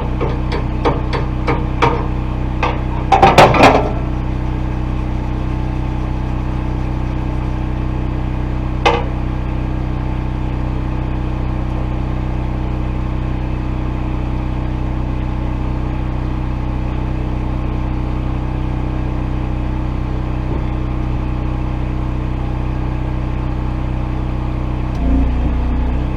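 An engine running steadily, with a quick run of light metal taps near the start, a louder cluster of knocks a few seconds in, and one more knock later.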